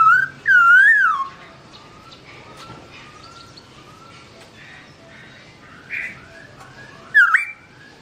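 Black-throated laughingthrush singing: two loud whistled notes that rise and fall at the start, then softer warbling notes, then a sharp upward whistle about seven seconds in.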